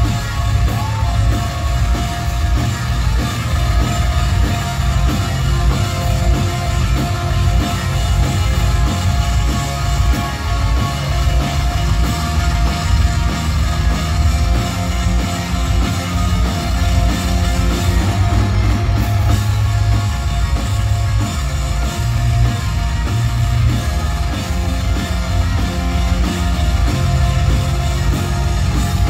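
Live post-hardcore band playing loud with electric guitars and a drum kit, recorded from the crowd with a heavy, boomy bass.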